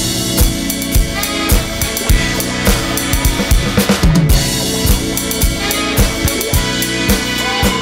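Drum kit groove on a Roland TD-9 electronic kit's sound module, with bass drum, snare and rimshot hits in a steady beat, mixed over a funk band recording.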